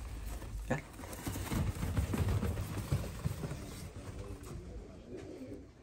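Fancy pigeons flapping their wings and scuffling on artificial turf: a run of soft, irregular low thumps with one sharper tap about a second in, quieter toward the end.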